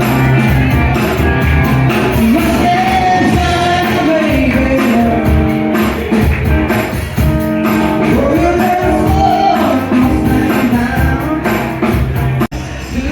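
Music: a song with a singing voice over a band, with one brief break in the sound near the end.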